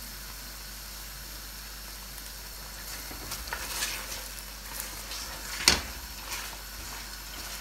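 Lamb pieces sizzling in freshly added hot oil in a stainless steel pan, a steady hiss at first. They are then stirred with a silicone spatula, scraping the pan, with one sharp knock of the spatula against the pan about three-quarters of the way through.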